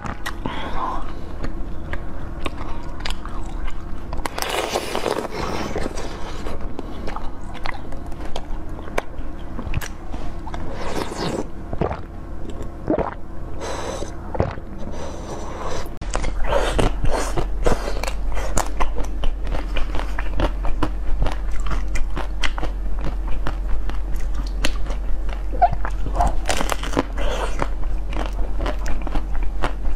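Close-miked crunching bites and chewing of frozen jelly and candy treats: many sharp cracks as pieces are bitten off, then wet chewing. A steady low background hum runs under it and grows louder about halfway in.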